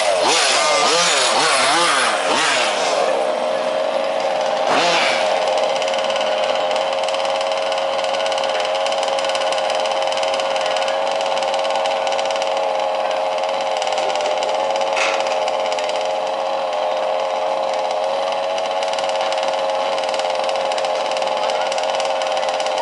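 Small two-stroke petrol engines of several 1/5-scale RC trucks revving with rising and falling pitch for the first few seconds, then settling to a steady, even idle.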